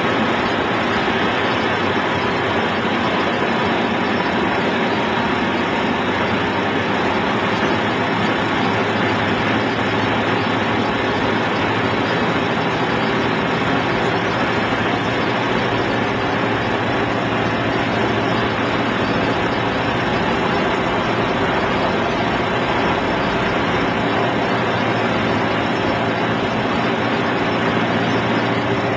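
Piper Super Cub floatplane's piston engine and propeller running steadily, with a constant low tone and no change in pitch or level.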